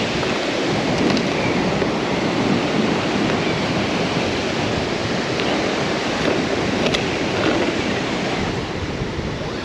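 Surf washing onto the beach with wind buffeting the microphone: a steady rushing noise.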